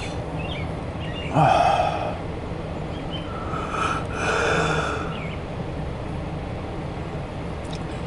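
Steady background rumble of a distant passing intermodal freight train and road traffic. Two breaths close to the microphone stand out: a loud one about a second and a half in and a softer, longer one around four seconds in.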